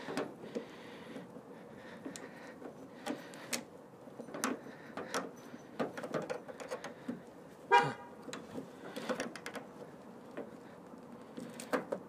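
Screwdriver clicking and scraping against the old, brittle plastic clip on a door lock cylinder as it is pried off, with scattered small clicks. About three-quarters of the way through, one brief, louder pitched squeak stands out.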